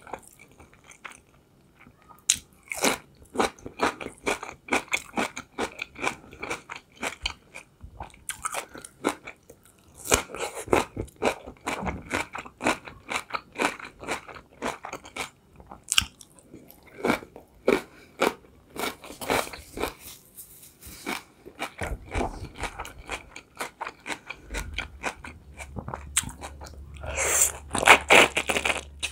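Crisp crunching and chewing of fresh cucumber in the mouth, in rapid irregular bites and chews. Near the end comes a louder bite into a boiled beef khinkali dumpling.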